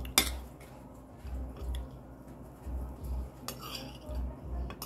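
Metal spoons scraping and clinking against dinner plates while two people eat, with a sharp clink just after the start and another clatter about three and a half seconds in. Soft low thuds repeat in between.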